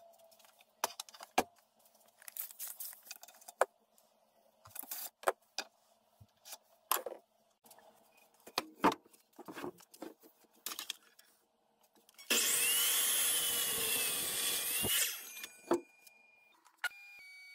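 Scattered knocks, clicks and rubs of tools and wood being handled, then a miter saw runs for about three seconds, cutting through a wooden board, and its motor whine dies away.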